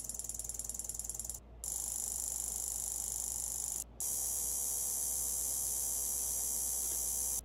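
Automotive mechanical relay clicking rapidly as an Arduino switches it on and off, sending a 12-volt square-wave signal to a stock tachometer. It starts at roughly a dozen even clicks a second, then after two brief breaks comes in faster runs where the clicks blur into a steady rattle as the commanded RPM rises.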